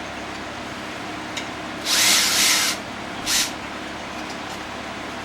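A power tool runs in a burst of just under a second, then briefly once more, loosening a brake caliper bolt on a smart fortwo. A fan hums steadily underneath.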